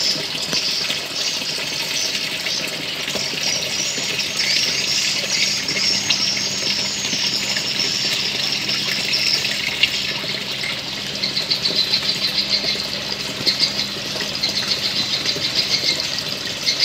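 Steady rush of running water with high chirping over it, turning into a fast pulsing chirr in the last third.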